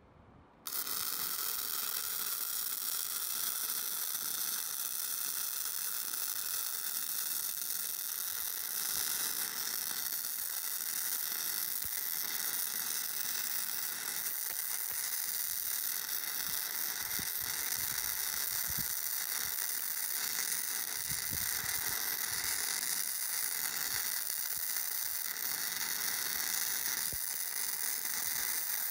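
Wire-feed welding arc on the steel container roof: a steady crackling sizzle that starts abruptly about a second in and runs without a break as a continuous bead is laid.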